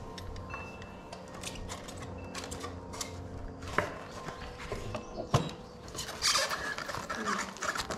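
Handling noise from a die-cast model car: scattered light clicks and taps, with a sharp tap about five seconds in as it is set down on a plastic folding table, then a short burst of noise.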